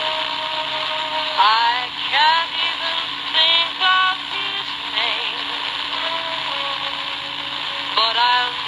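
Electra HT8100 transistor radio playing a song picked up from a distant AM station: a singing voice with music comes through its small speaker over steady static hiss.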